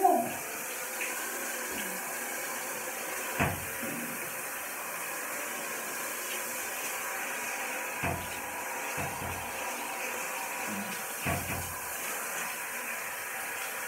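Handheld shower head spraying water onto a wet dog's coat as it is being bathed, a steady hiss. There are a few short knocks about 3.5, 8 and 11 seconds in.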